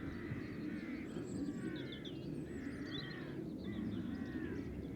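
A flock of crows cawing in a noisy, overlapping clamour, going mad over something, with a few higher bird chirps among them. A steady low rumble runs underneath.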